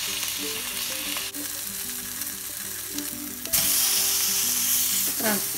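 Pork tenderloin sizzling as it browns in hot olive oil in a frying pan. The sizzle gets louder about three and a half seconds in.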